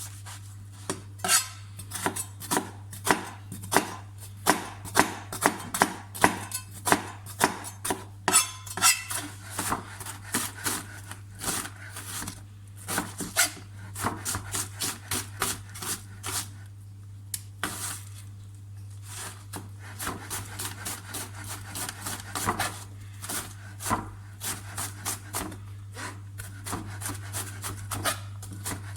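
Knife chopping on a cutting board: a long run of sharp, irregular knocks, several a second in places, over a steady low hum.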